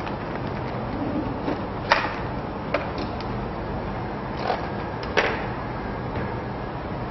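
A few short clicks and squelches as a wet straining cloth full of beaten egg and tapioca starch is wrung out over a glass bowl, over a steady background hiss and hum.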